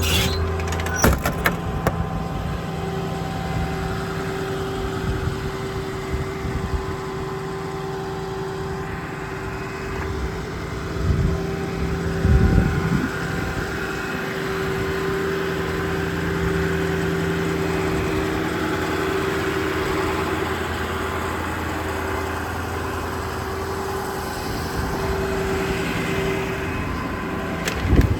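Ford 6.4 Power Stroke V8 diesel idling steadily in a service truck, with a steady hum throughout. A few sharp clicks come about a second in, and the sound is briefly louder and rougher about halfway through.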